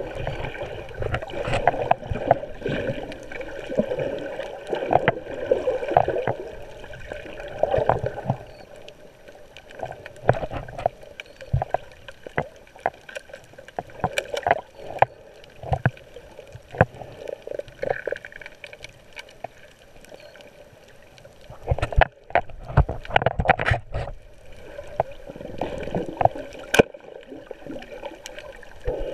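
Muffled underwater sound picked up by a GoPro camera: water sloshing and gurgling around the camera, with many irregular clicks and knocks, quieter about two-thirds of the way through and busiest just after.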